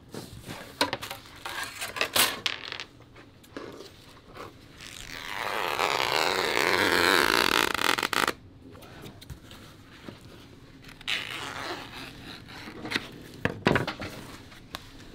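Scissors cutting through camouflage fabric in one long continuous cut of about three seconds, which stops suddenly. Before and after it, short scrapes and taps of hands and a ruler working on the cloth.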